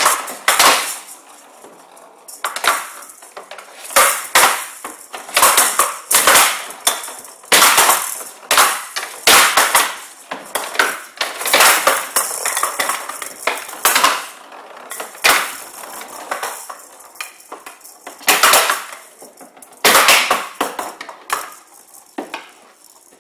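A showdown rally: the ball, which has metal beads inside, rattles as it rolls across the wooden table. Wooden bats hit it and it bangs off the side walls with sharp clacks, about one or two a second, until the rally stops near the end.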